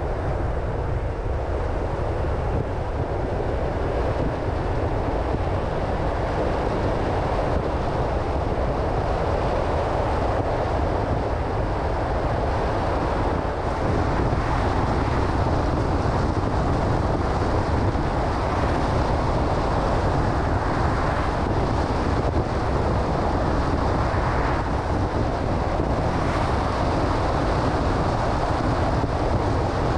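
Car driving at a steady pace: continuous tyre and wind noise with no distinct events.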